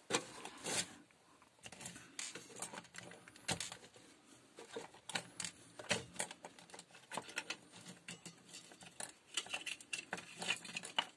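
Irregular light clicks and knocks of hard plastic drill parts being handled: the motor and gearbox assembly of a Black & Decker 14.4 V cordless drill is lifted out of its open plastic housing half and the trigger switch with its wires is taken out.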